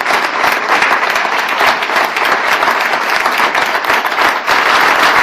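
A roomful of people applauding, loud and steady, a dense wash of many hands clapping.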